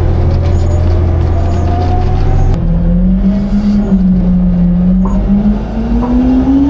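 Heil Freedom rear-loader garbage truck running a packing cycle: the truck's engine revved up driving the hydraulic pump, a loud mechanical drone. Its pitch shifts about two and a half seconds in and climbs steadily near the end as the packer works through its cycle.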